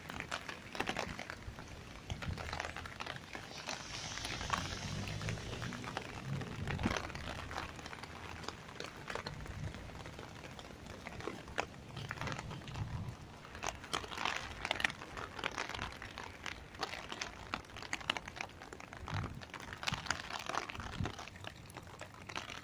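Rain falling on an umbrella overhead: many quick, irregular taps, with gusts of wind rumbling on the microphone now and then.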